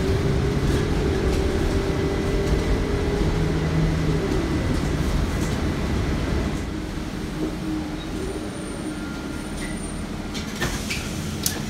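City bus running, heard from inside the passenger cabin: steady engine and ride noise with a whine that stops about four seconds in. A couple of sharp knocks near the end.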